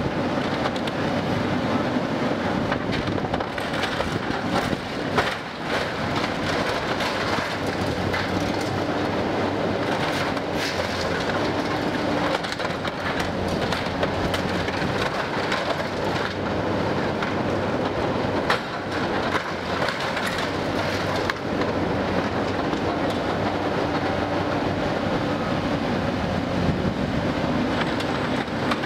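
Caterpillar 320C L hydraulic excavator demolishing a building: its diesel engine and hydraulics run steadily under a constant clatter and crunch of metal siding and debris being torn and dropped, with many sharp knocks and bangs.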